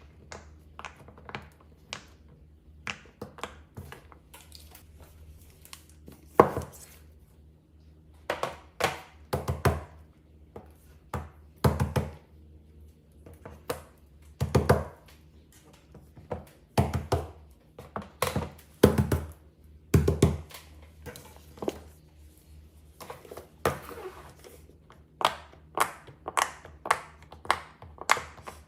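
Fidget toys being handled and set down: irregular taps and thunks, some louder than others, with a faint low hum underneath.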